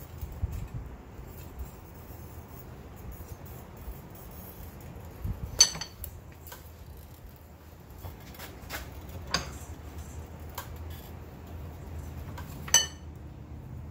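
Forged steel tongs and a steel bar clanking against each other in a bench vise as the tongs' jaws are spread to take thicker stock: three sharp ringing clanks a few seconds apart, the first the loudest, with lighter metal taps between.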